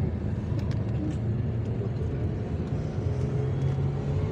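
Car engine and tyre-on-road noise heard from inside the cabin while driving on a highway; the engine's low hum rises a little in pitch about three seconds in as the car picks up speed.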